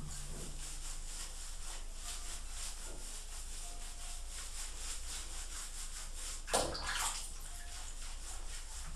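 Bathwater sloshing softly while a cat is washed in a bathtub, with hands rubbing its wet fur. One louder splash comes about two-thirds of the way through.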